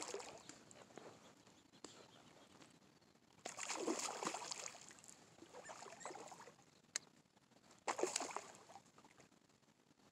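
Hooked fish splashing and thrashing at the water's surface while being reeled in, in two main bursts, about four seconds in and again around eight seconds, with a single sharp click near seven seconds.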